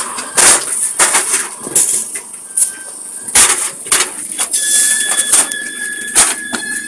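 Irregular sharp clicks and knocks, joined about two-thirds of the way through by a steady high whistling tone.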